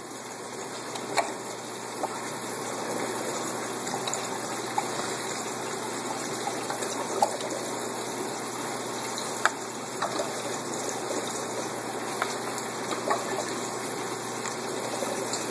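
Steady rush of running water in an aquaponics system's plumbing and tank, with a few light clicks scattered through it.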